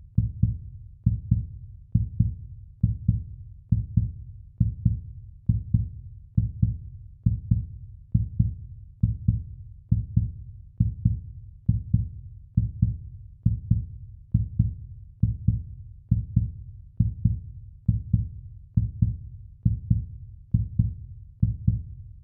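Heartbeat sound effect: a steady lub-dub, each beat a quick double thump, repeating evenly about once a second.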